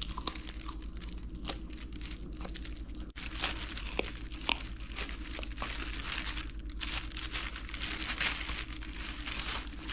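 A dog chewing a duck head and neck, with irregular sharp crunches and cracks of bone.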